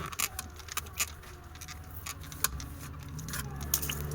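Irregular small clicks and taps over a low steady hum; the hum gets a little louder about two and a half seconds in.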